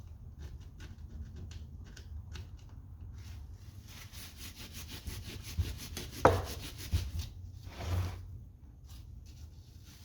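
Hand rubbing and scrubbing on a greasy metal tractor part to clean off its stamped part number: a fast run of short rubbing strokes. One sharp knock about six seconds in is the loudest sound, with a few duller thumps around it.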